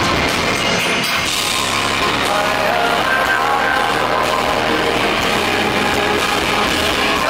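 Live pop band music played loud through the concert PA, recorded from among the audience.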